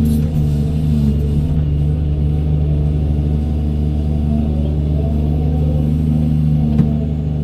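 Doosan 210W wheeled excavator's diesel engine running steadily under working load, a low, even drone with the pitch rising slightly for a few seconds as the hydraulics work. A single brief knock near the end.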